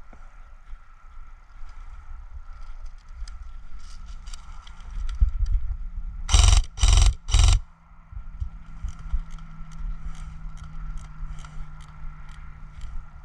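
Scraping, rustling and faint clicking of a player's gear and movement, over a low rumble, broken about six seconds in by three short, loud bursts in quick succession.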